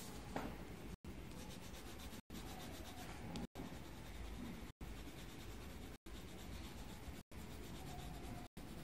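Faint scratching of a coloured pencil on paper, cut by brief dropouts about every second and a quarter.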